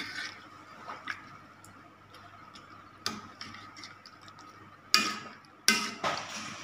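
Metal spoon stirring a coconut-milk curry in an aluminium wok, clinking and scraping against the pan in a few sharp knocks, the loudest two near the end.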